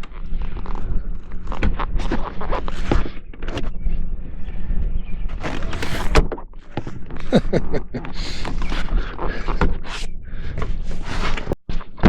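Rear seat of a Ford Super Duty pickup being worked back into its latch: repeated clunks, knocks and rattles of the seat frame and trim, over a steady low hum.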